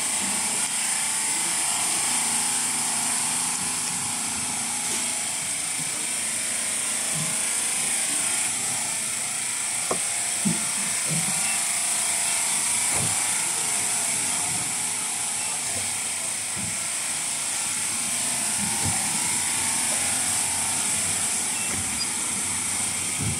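4D HIFU beauty machine and its cartridge handpiece running: a steady mechanical whir and hiss, with a few scattered clicks.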